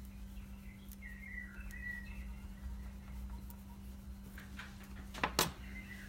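Faint bird chirping, a short warbling run about a second in, over a steady low hum. Near the end come two sharp clicks close together, the loudest sounds.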